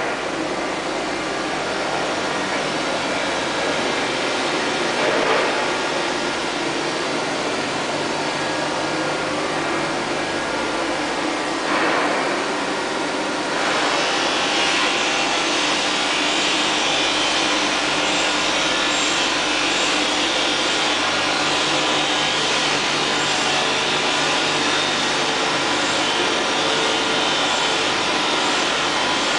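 Kitamura Mycenter 2 vertical machining center running: a steady machine hum and hiss that steps up to a louder, higher hiss about a third of the way through.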